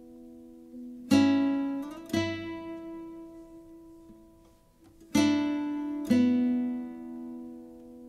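Slow acoustic guitar music: four struck chords in two pairs, each about a second apart, each ringing out and fading.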